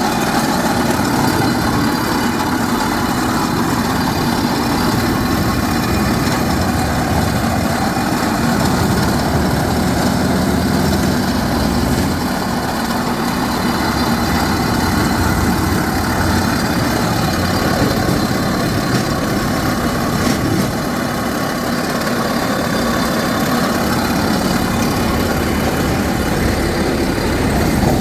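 A drilling rig's engine running steadily under load, with an even hiss of heavy rain over it.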